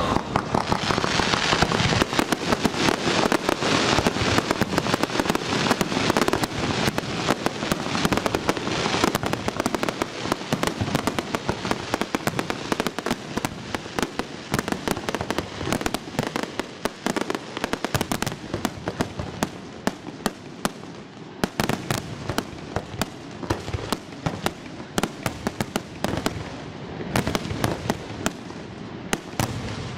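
Fireworks display: aerial shells bursting, with a dense, continuous crackle of many small pops. The crackle is thickest in the first several seconds.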